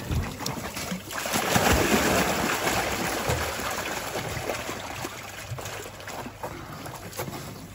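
Water and live trout pouring from a plastic tub into a hole in the ice: a splashing gush that starts about a second in and slowly tapers off.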